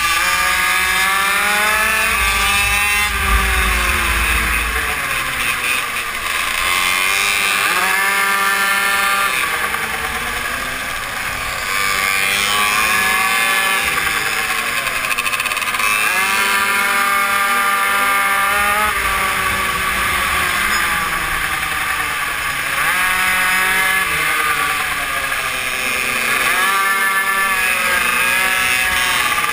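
Onboard sound of a GRC RR BZM super mini moto's small engine revving hard, climbing in pitch as it accelerates out of each corner and dropping back as the rider backs off for the next, again and again through a lap.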